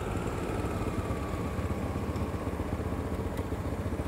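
Motorcycle engine running steadily, a low even hum with no change in pitch.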